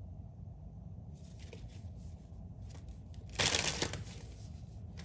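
Tarot cards being shuffled and handled: soft scattered card clicks, then a brief louder riffle of the deck about three and a half seconds in.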